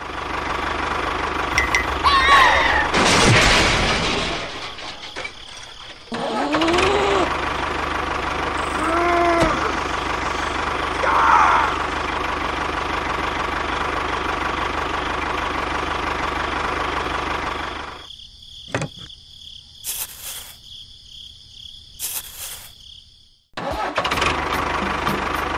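Tractor engine running steadily, with several short voice-like sounds sliding up and down in pitch in the first half. About two thirds of the way through, the engine drops out for several seconds, leaving a high steady tone and a few sharp clicks, then it comes back near the end.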